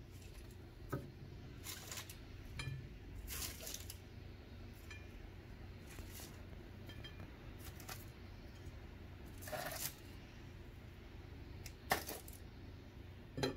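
Metal kitchen tongs clicking and scraping against a foil-lined baking sheet while baked chicken nuggets are picked up and set on a plate: scattered light clicks and short crinkles, with a sharper click about twelve seconds in and another near the end.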